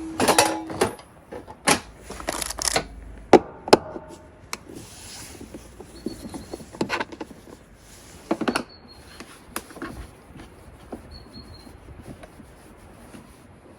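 Scattered knocks and clicks of objects being handled, louder and denser in the first few seconds and sparser after; no engine is running.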